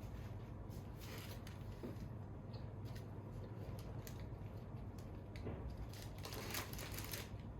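Faint scattered clicks and short rustles of things being handled, over a low steady hum, with a longer rustle near the end.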